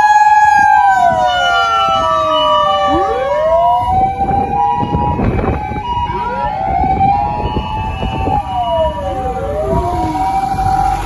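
Several Japanese fire engines' sirens sounding together. Mechanical sirens wind up and down in overlapping rising and falling wails over steady, on-and-off electronic siren tones. Bursts of low rumbling noise come in midway.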